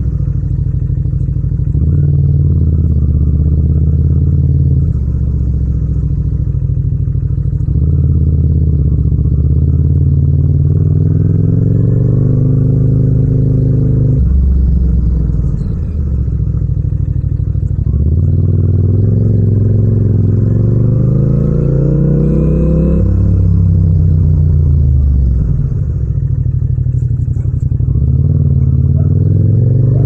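Yamaha MT-07's 689 cc parallel-twin engine and exhaust under way, heard raw without wind noise. Its pitch climbs as it accelerates and drops back several times, with the longest climbs about a third and two thirds of the way in.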